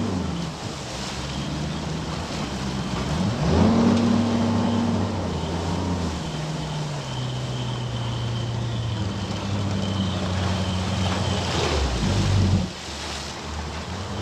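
Boat outboard motor running on the water, with wind and water noise over it. Its note rises about three seconds in, holds steady, then drops away sharply near the end.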